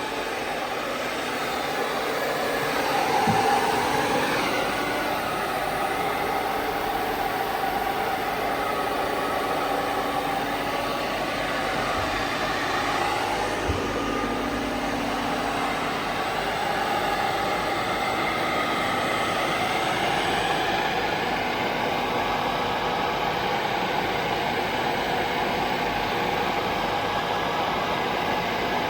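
STUDER S30-1 universal cylindrical grinder running: a steady mechanical hum and whir with faint held tones, swelling a little a few seconds in.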